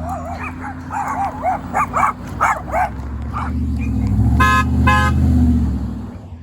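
Dogs barking repeatedly, then a passing truck's engine rumble swells and its train-style air horn gives two short blasts about half a second apart.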